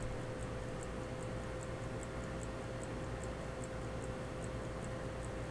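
A 100-year-old pocket watch movement ticking steadily with rapid, even, light ticks. It is running again, its impulse jewel back in place. A steady hum sits underneath.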